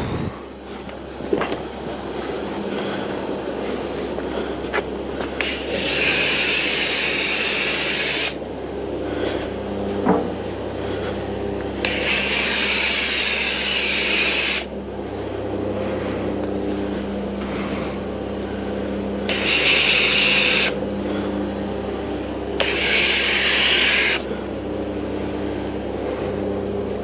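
Snow foam lance spraying in four hissing bursts of about two to three seconds each, over a steady mechanical hum.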